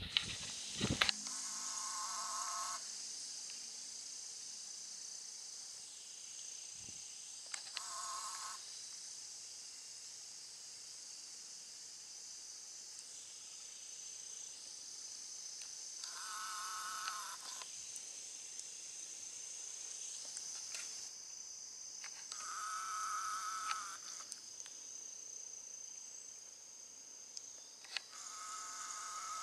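Steady high-pitched insect buzz throughout, with a trilling animal call of one to two seconds repeating five times, several seconds apart.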